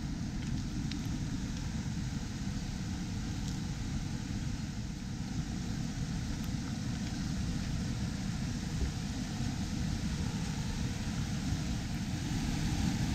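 Steady rush of a fast mountain river pouring over a low stone weir, a little louder near the end.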